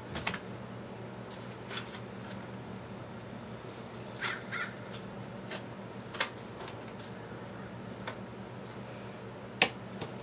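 Mousepad packaging tube being handled and opened: scattered short clicks and scrapes, spaced a second or so apart, over a steady low hum.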